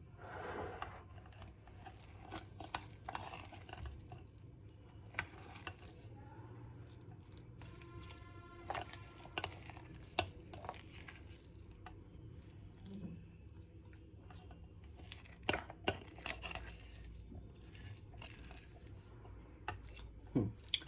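Soft wet squishing and handling as oiled hands knead and shape minced chicken into meatballs, with scattered light clicks and taps of a bowl or plate.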